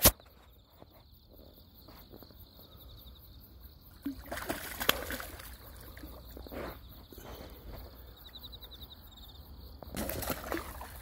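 Quiet ambience by the water, with a steady high-pitched trill throughout. A sharp click comes at the very start, and two short bursts of water sloshing come about four and ten seconds in.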